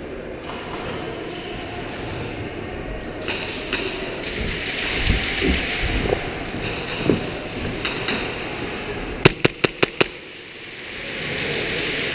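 Footsteps thumping and gear rustling on a concrete floor, then five sharp airsoft gun shots in quick succession about nine seconds in.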